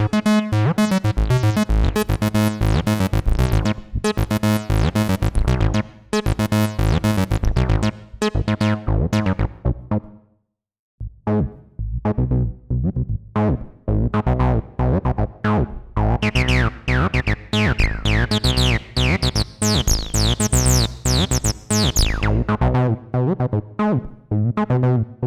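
Behringer TD-3-MO, a TB-303-style analog bass synth, playing a fast sequenced acid bassline pattern. It cuts out for under a second near the middle and then starts again. A few seconds later the filter opens up and the notes turn bright and squelchy for several seconds before settling back.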